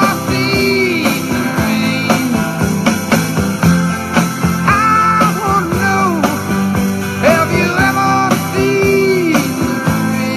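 Rock song: a voice singing long held notes over strummed guitar, bass and a steady drum beat.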